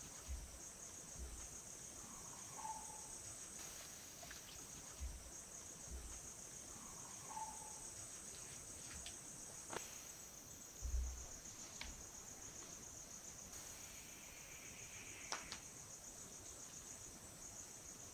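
Insects chirring steadily at a high pitch, faint throughout. Two short faint calls and a few scattered clicks and low thumps come through on top.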